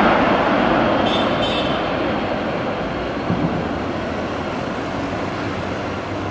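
Jet engines of a Boeing 747-400 freighter running as it taxis: a steady rushing noise that slowly fades.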